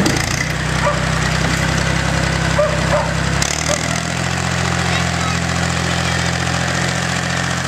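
Engine of an old yellow front-loader tractor running steadily as it drives forward, its note changing abruptly about three and a half seconds in.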